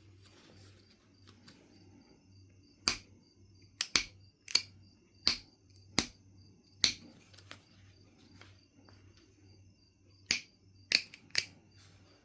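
Knife River Flint being knapped: a run of sharp, dry clicks as flakes are struck or pressed off the stone, about seven over four seconds, then a pause and a quick cluster of four more near the end.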